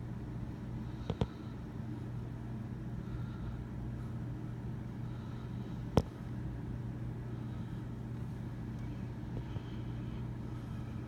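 Steady low background hum with a constant droning pitch. Two short clicks come about a second in and one sharp click about six seconds in.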